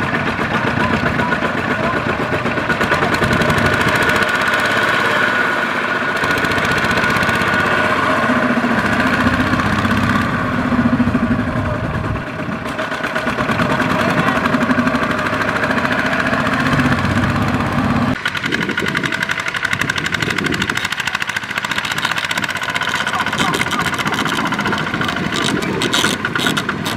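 Kubota single-cylinder diesel walking tractor running hard as it hauls a trailer loaded with sacks of rice, its engine speed rising and falling. The engine sound changes suddenly about two-thirds of the way through.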